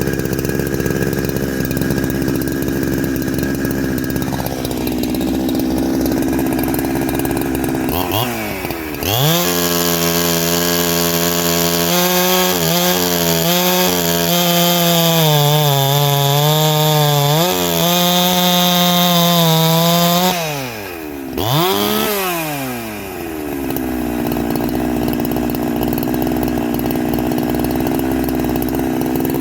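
Two-stroke chainsaw with a shotgun-style pipe muffler idling, then revved to full throttle and held there for about twelve seconds. It drops back, gets one quick blip, and settles to idle again.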